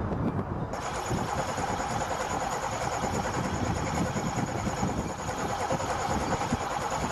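Starter motor cranking the snow-packed Pontiac engine, which turns over without firing. It kicks in about a second in and cuts off abruptly after some six seconds. The owner puts the failure to start down to ignition wires too wet with snow.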